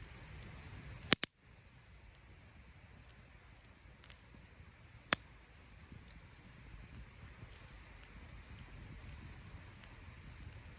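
Wood campfire crackling with small scattered pops. There is a loud double crack about a second in and one sharp pop about five seconds in.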